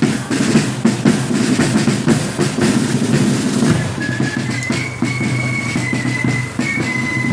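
A marching flute band: side drums and a bass drum beating a march, with the flutes coming in on a melody about four seconds in.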